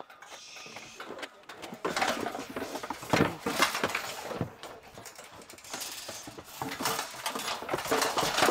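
Metal livestock panels of a makeshift cattle chute clanking and rattling in a quick irregular run of knocks as a large steer pushes and shoves against them.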